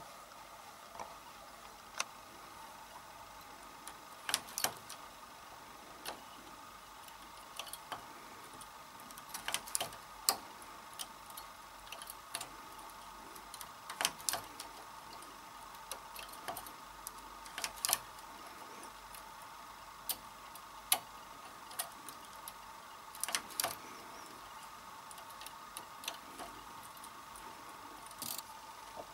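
Silver Reed SK 280 double-bed knitting machine knitting 1x1 rib: the carriage is pushed back and forth across the needle beds, giving clusters of sharp metallic clicks and clacks every few seconds over a faint steady hum.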